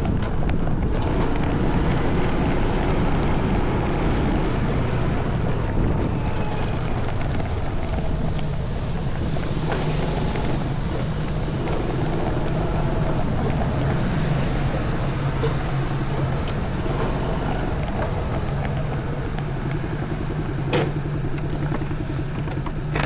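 Daelim Citi Ace motorcycle engine running steadily while riding, with wind rushing over the microphone.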